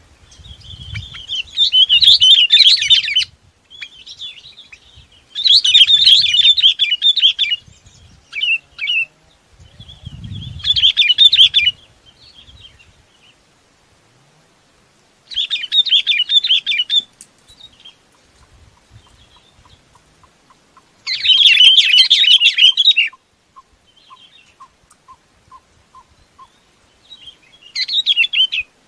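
Bông lau bulbul calling: about six bursts of quick, bubbly chattering song, each lasting a second or two, with pauses of a few seconds between them.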